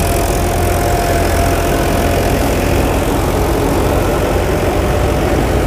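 Mahindra Arjun 555 four-cylinder diesel tractor driving a PTO-powered paddy thresher, the engine and thresher running together at a steady, even load with no pauses.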